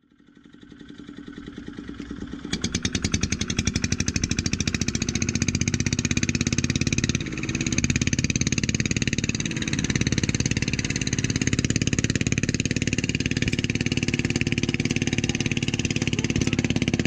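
Boat engine running steadily with a fast, even pulse, fading in from silence over the first couple of seconds.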